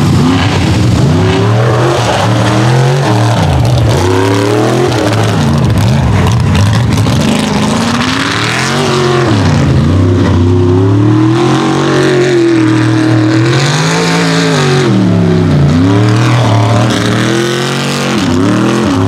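Mud racing super truck's engine run hard down the track, its revs rising and falling again and again as the driver works the throttle.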